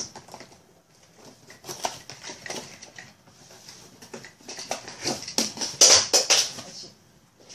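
Tripod box and its packaging being opened and handled: scattered rustles and knocks, growing into a louder burst of clatter about five to six and a half seconds in.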